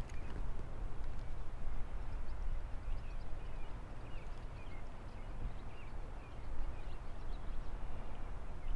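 Wind rumbling on the microphone, with faint, short bird chirps scattered through it.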